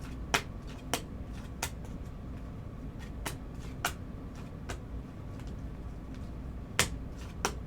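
Scattered light clicks and taps from trading cards and their plastic holders being handled, over a steady low room hum.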